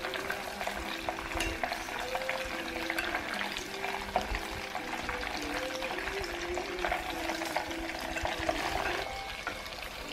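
Food frying in a pan, with a steady sizzle and scattered light clicks of a utensil moving it about.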